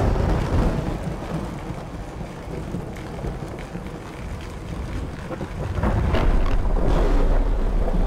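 A deep, noisy rumble with no clear tone, growing louder about six seconds in.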